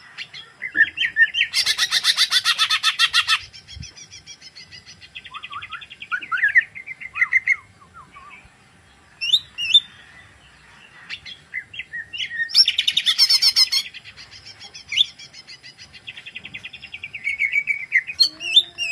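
A green leafbird (cucak ijo) singing a long, varied song of warbled phrases and chirps. Twice it breaks into a loud, rapid trill of about ten notes a second, once near the start and once about two-thirds through. The bird is in full song, crest raised and running through its repertoire of learned phrases.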